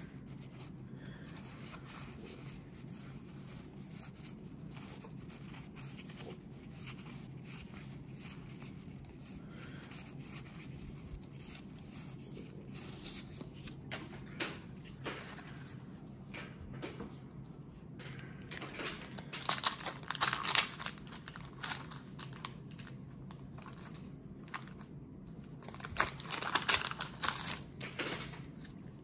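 Wax-paper wrapper of a 1991 Donruss baseball card pack being torn open and crinkled, in two louder bursts several seconds apart in the second half. Before that, cards are handled faintly over a steady low hum.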